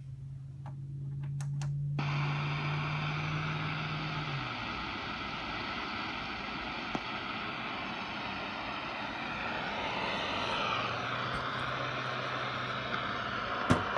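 Static hiss from a Grundig Satellit 800 Millennium shortwave receiver tuned across the AM medium-wave band, with no station coming through clearly. The hiss starts suddenly after a few faint clicks, over a low steady hum that fades out about four seconds in and returns near the end. A sharp click comes just before the end.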